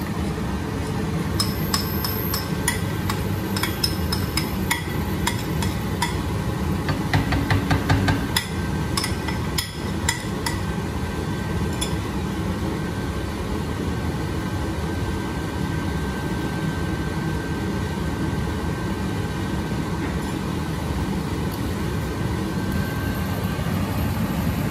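Metal spatula clinking and scraping against a wok during stir-frying, in quick strokes through the first dozen seconds and then stopping, over a steady low rumble.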